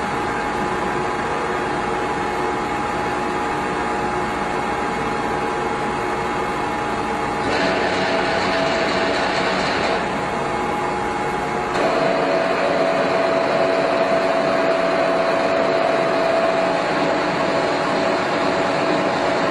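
Large heavy-duty lathe running: a steady mechanical hum with a gear-drive whine. The sound changes and grows louder about 7.5 seconds in and again about 12 seconds in, where the whine becomes more prominent.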